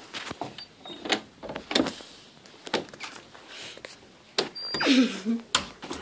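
Interior doorknob being turned and rattled, its latch clicking and the door knocking several times. About five seconds in comes a louder, drawn-out sound that wavers in pitch.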